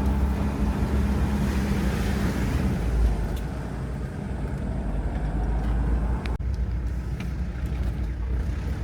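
Diesel engine of a 1993 Mitsubishi Pajero V46 running under load as it climbs a steep hill road, a steady low rumble with road noise. A hum in the engine note fades about three seconds in, and the sound dips briefly about six seconds in.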